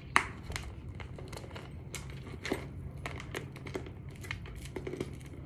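Clear plastic purse crinkling and clicking as it is handled and a wallet is put into it: a run of irregular sharp crackles, the loudest just after the start.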